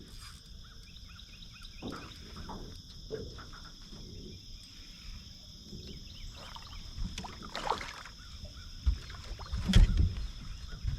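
Small fishing boat sitting on the water: scattered light knocks and splashes against the boat under a faint steady high hum, with louder low rumbling thumps near the end.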